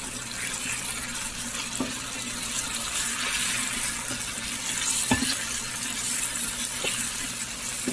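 Cherry tomatoes, onion and chili sizzling in olive oil in a frying pan as a wooden spatula stirs them, with a few knocks of the spatula against the pan.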